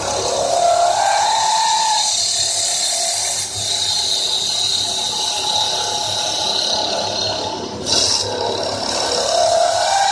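CNC wood lathe turning a wooden bowl: a steady hiss of the cutting tool on the spinning wood, with a machine whine that rises in pitch near the start and again near the end.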